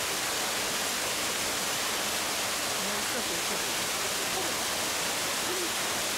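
Steady rush of water from a small artificial waterfall splashing into a rock pool, with faint voices of people underneath.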